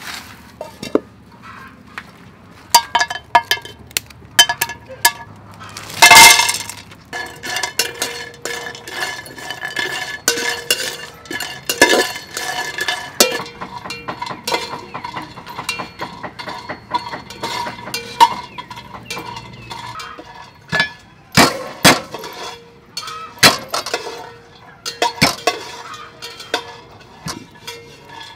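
An aluminium cooking pot and a metal ladle clinking, knocking and scraping on a charcoal stove, in a string of sharp, irregular clinks. The loudest knock comes about six seconds in.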